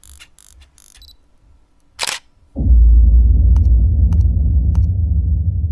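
Intro sound effect: a sharp camera-shutter-like click about two seconds in, then a sudden deep boom that carries on as a loud low rumble, with three faint ticks evenly spaced through it.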